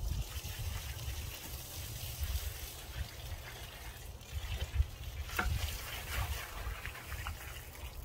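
Water pouring in a steady stream from a tipped-up plastic bucket and splashing onto gravel and concrete as the bucket is emptied, over a low rumble; the splashing stops at the very end.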